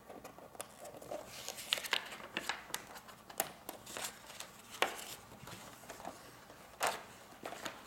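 Large paper sheets rustling as they are lifted and shifted in a poster frame, with scattered light clicks and taps from the frame, loudest about three and a half, five and seven seconds in.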